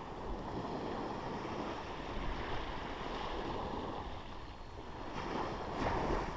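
Surf washing steadily onto the beach, with wind on the microphone.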